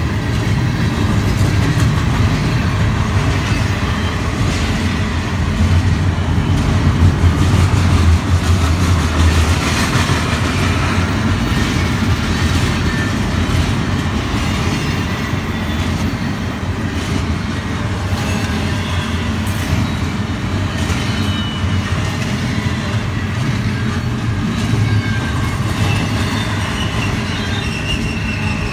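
Double-stack container train's well cars rolling past: a steady, loud rumble and rattle of steel wheels on the rails, swelling a little about six to ten seconds in.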